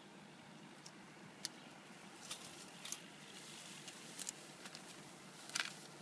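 Faint, scattered light scuffs and clicks of puppies' paws and claws moving about on rock and dry grass, the loudest near the end.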